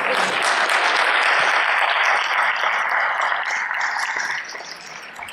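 Audience applause in an auditorium, steady at first and dying away about four seconds in.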